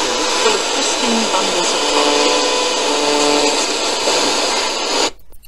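Loud FM radio static hissing from the TG-184 speaker: pulling the USB stick drops the unit into FM mode, untuned between stations. The hiss starts suddenly and cuts off about five seconds in.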